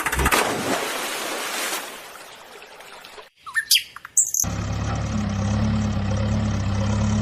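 A small toy tractor splashing into river water, the watery noise fading away over a few seconds. A few short bird chirps follow briefly about three and a half seconds in, then a steady low hum starts and runs on.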